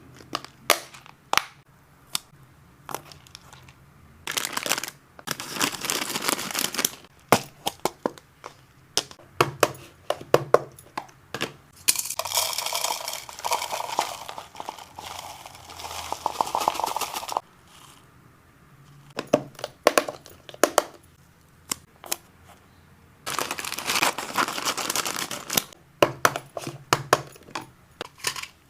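Plastic snack packaging crinkling and tearing, and dry hamster snacks rattling and clicking as they are handled and sorted into storage. Sharp separate clicks alternate with several stretches of continuous rustling.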